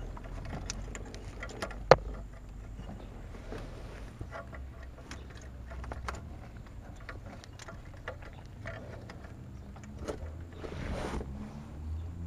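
Handling noise from work on a car's wiring under the dashboard: small scattered clicks and rattles of plastic connectors and trim, with one sharp click about two seconds in and a brief rustle near the end, over a low steady rumble.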